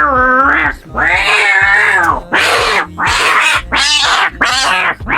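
Orange tabby cat yowling angrily, about six long wavering calls in quick succession: the drawn-out protest of a fierce cat being handled for grooming.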